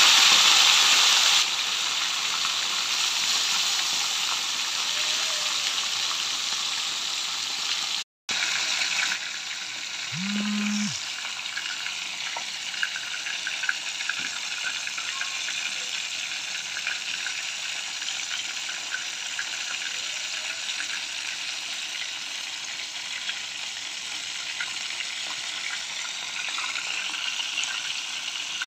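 Whole talakitok (trevally) frying in hot oil in a pan: a steady sizzle with fine crackling pops, loudest in the first second or so, cutting out briefly about eight seconds in.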